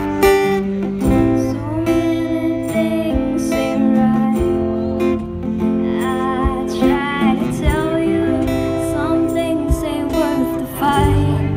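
Live acoustic band playing: strummed acoustic guitars over held keyboard chords, with a woman singing into a microphone.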